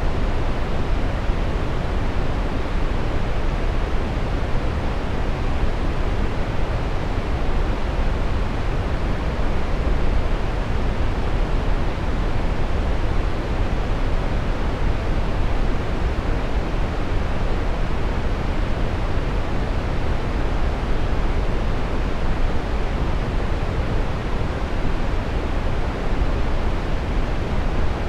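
Steady brown noise: a continuous, even rumbling hiss, strongest in the low end and fading toward the top, with no changes or events.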